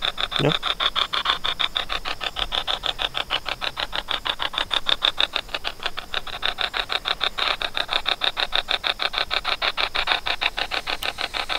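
Spirit box app on a smartphone sweeping through the phone's speaker: rapid, evenly chopped bursts of static, about six a second.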